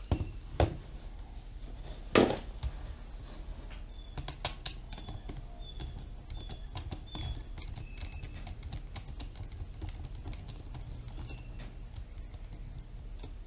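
A small screw being undone from the Dyson V6 vacuum's plastic battery housing with a screwdriver: scattered light clicks and taps, a louder knock about two seconds in, and faint short squeaks repeating about twice a second for a few seconds.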